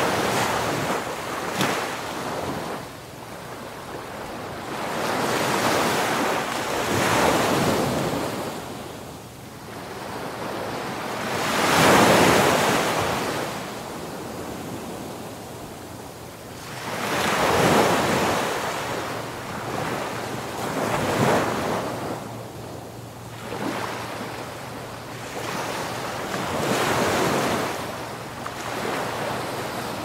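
Sea waves breaking and washing up a beach. The hiss surges and ebbs every five seconds or so, the largest surge about twelve seconds in.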